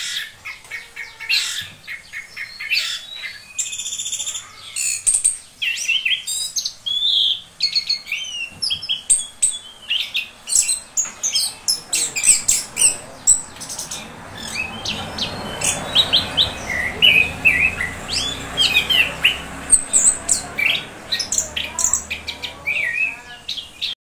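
Caged chestnut-capped thrush (anis kembang) in full song: a rapid, unbroken run of varied chirps, trills and whistles.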